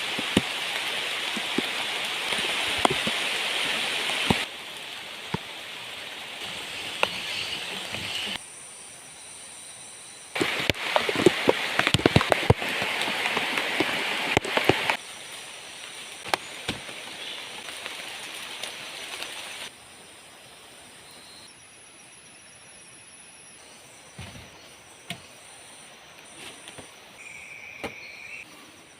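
Heavy rain falling, dense and hissing, with many sharp drop impacts crackling through it. It switches abruptly between loud and softer stretches several times. In the last third the rain is much lighter, and steady high insect trills run under it.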